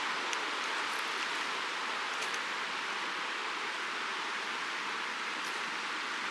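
Steady, even rushing of a river flowing past a gravel bar.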